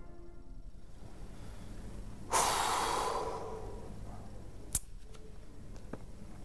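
A man heaves a loud sigh about two seconds in, a sudden rush of breath that fades over about a second, followed by a couple of faint clicks.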